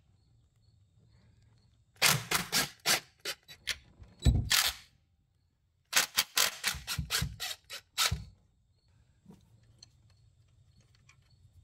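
Cordless impact driver hammering a bracket bolt loose, in two bursts of rapid clicking a few seconds long, the first about two seconds in and the second about six seconds in.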